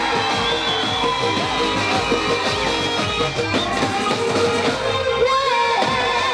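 Loud live stage music: a band with an electronic keyboard playing, and a woman singing into a microphone.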